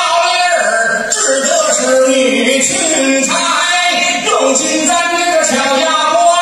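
A man singing a taiping geci, the northern Chinese folk ballad of the crosstalk stage, in long held and bending sung notes.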